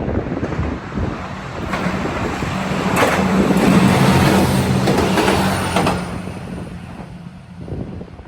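A train passing close by the level crossing. It grows louder to a peak about three to six seconds in, with a steady low hum and a few sharp clicks, then fades.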